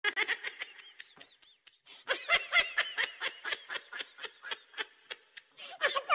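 High-pitched giggling laughter: a quick run of short laughs, a brief pause, then a second, louder run.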